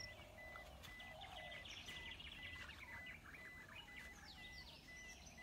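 Faint birdsong from the surrounding bush: many quick chirping notes, thickest about a second or two in and again near the end, over a low hum. A faint high beep repeats about twice a second underneath.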